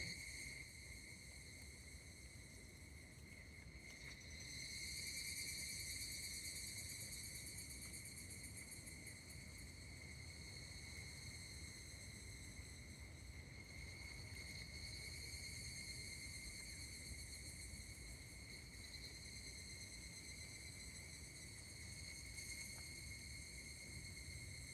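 Higurashi (evening cicadas) calling steadily in a high, ringing chorus, which grows louder from about four and a half seconds in and eases again around nine seconds.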